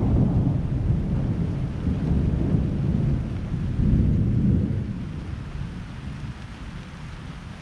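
Thunder rumbling over steady rain, swelling near the start and again about four seconds in, then dying away.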